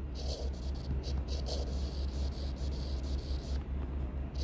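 Stylus writing on a tablet's glass screen: faint scratching strokes that pause briefly near the end, over a steady low electrical hum.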